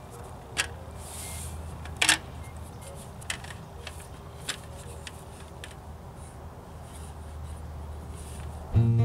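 Small aluminium folding table being unfolded and set up: a handful of light clicks and clatters as its parts snap into place, with one louder knock about two seconds in.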